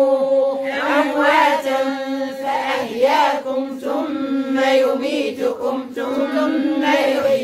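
A group of women reciting the Quran aloud together in unison. The chant is slow and drawn out, with long held notes.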